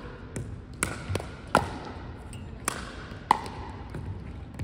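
Pickleball rally: sharp plastic pops of paddles striking the ball and the ball bouncing on a hardwood gym floor. The hits come irregularly, about eight of them, with the loudest about a second and a half in and again after about three seconds. Each pop has a short ring and echoes in the large hall.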